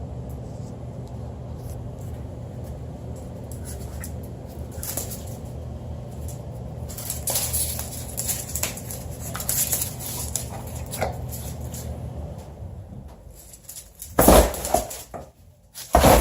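A boxer dog scrambling after a laser dot on bubble wrap and a cardboard box: scattered crackles and scratches, then two loud bumps near the end. A steady low hum underneath stops partway through.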